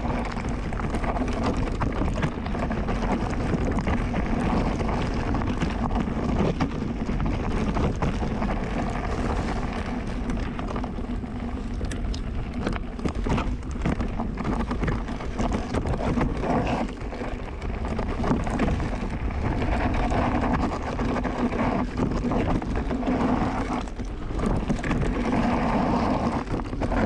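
Wind on the microphone and the rattle and knocks of an electric mountain bike being ridden over a rough trail, a steady rush with frequent small jolts.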